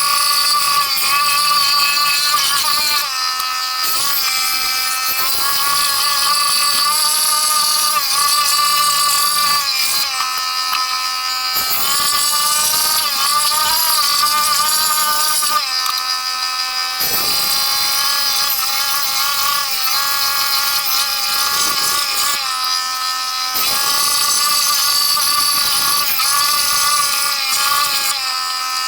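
Makita jigsaw running and cutting wood: a steady motor whine that wavers slightly in pitch under load, briefly easing off several times.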